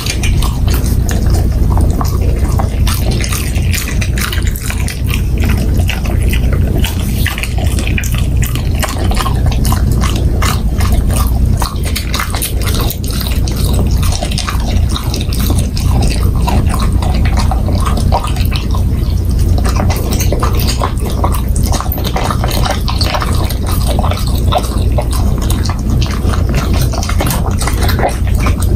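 Golden retriever chewing a large piece of steak: continuous wet smacking and chewing with many irregular short clicks, over a steady low hum.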